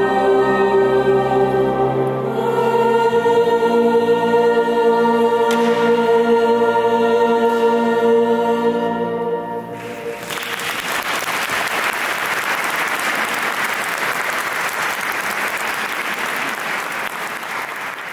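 Wind band of clarinets, saxophones and brass holding its closing sustained chords, with a change of chord about two seconds in, cutting off about ten seconds in. Audience applause follows.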